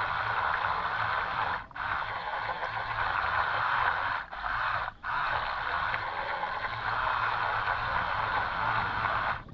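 The RC toy boat's twin 130-size electric drive motors running, with the propeller churning water. The sound cuts out abruptly three times for a moment, the throttle briefly let off, and stops sharply near the end when the motors are switched off.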